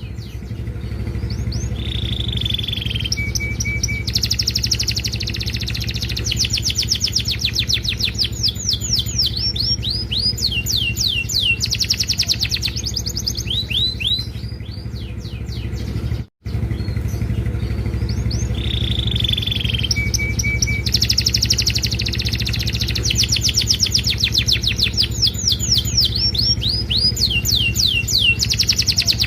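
Domestic canary singing a long, varied song of fast trills and rolls, with repeated quick downward-sweeping notes and a few held and chopped high phrases. The song cuts out briefly about halfway and the same sequence starts again. A steady low hum runs underneath.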